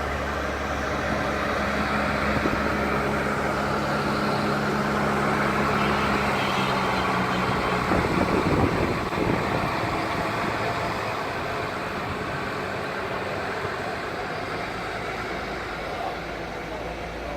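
Parking-lot tram moving, with a steady low engine hum under road and wind noise. The hum drops away about seven seconds in, with a brief louder rush of noise around eight to nine seconds.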